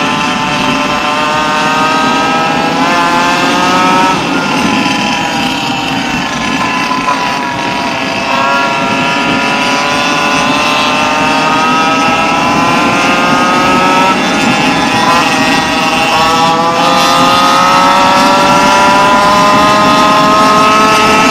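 Modified Goped's small two-stroke engine at high revs under way, its pitch climbing as it accelerates. It falls back about four seconds in, climbs slowly again, and rises once more near the end.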